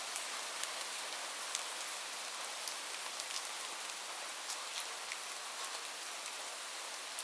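Light rain falling steadily: an even high hiss with scattered individual drops ticking on a surface.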